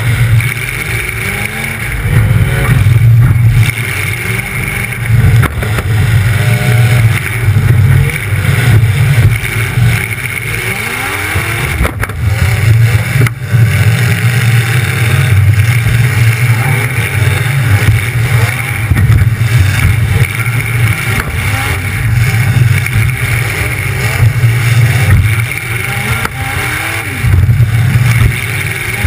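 Demolition derby car's engine running loud through open exhaust pipes that stick straight up through the hood, revving up and falling back again and again as the car moves about.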